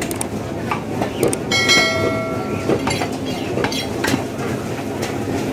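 Steady busy-market din with irregular sharp knocks of butchers' blades on wooden chopping blocks. A short pitched horn-like tone sounds about a second and a half in and lasts under a second.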